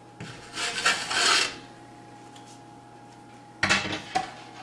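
Bread going into the oven: a rough scraping slide, such as the oven rack or the loaf on the stone, lasting about a second, then a sharp clunk and a lighter knock near the end.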